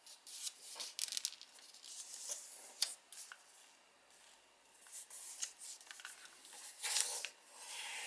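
Origami paper being folded by hand: soft rubbing and scraping as fingertips press and smooth a crease flat, with small ticks of the paper, a short pause about halfway, and a louder rustle near the end.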